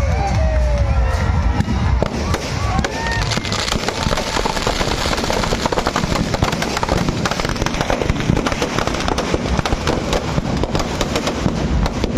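Firecrackers packed inside a burning Ravana effigy going off in a dense, irregular crackle of pops, with a few high gliding whistles in the first few seconds.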